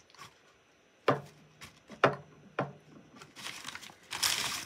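Items set down on a tabletop with three sharp knocks, then a plastic mailer bag rustling as a hand reaches into it near the end.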